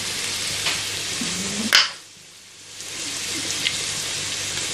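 Sliced onions sizzling in hot oil in a stainless steel frying pan as they are sautéed to soften, stirred with a steel spatula. A sharp click comes a little under two seconds in, the sizzle drops away for nearly a second, then it resumes steadily.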